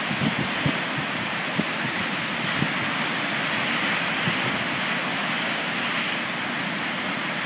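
Storm waves on Lake Superior breaking and surging in a steady rush of surf, with gusting wind. The wind buffets the microphone in short low thumps, most of them in the first second or so.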